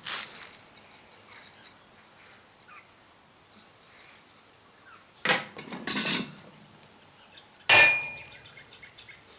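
Metal tools clinking and scraping about five and six seconds in, then one sharp hammer blow with a short ring: a hammer striking a touch mark punch into hot steel on the anvil.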